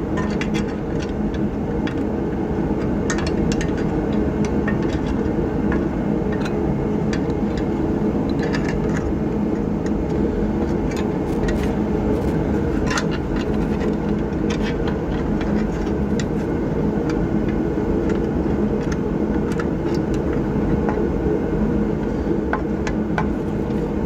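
A steady mechanical hum, with scattered light metallic clicks and taps as a truck's wheel hub and ABS sensor wire are lined up and fitted.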